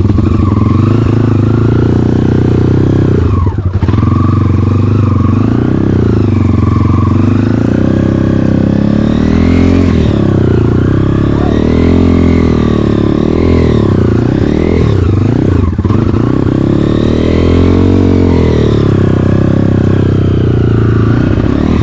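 Enduro dirt bike engine running under load on a trail, its revs rising and falling continuously as the throttle is worked. The throttle is briefly closed about three and a half seconds in and again near sixteen seconds.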